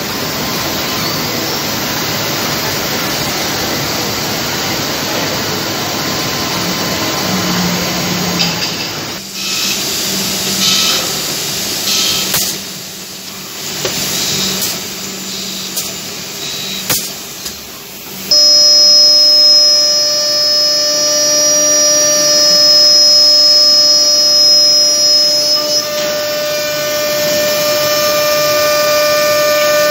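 Holztek six-sided CNC panel drilling machine at work: a steady rushing noise at first, then clicks and shifting noise as the heads move, and from a little past halfway a sudden steady high-pitched whine that changes pitch again near the end.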